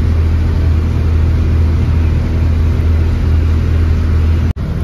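Passenger ferry's engine running steadily as the boat cruises along a canal, heard as a loud, even low drone from inside the open cabin. It cuts off abruptly just before the end.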